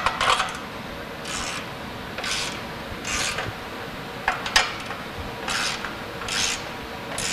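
Ratchet wrench tightening the nut on an exhaust-pipe clamp: a short run of clicks on each swing of the handle, about once a second, with a couple of sharp clicks in the middle.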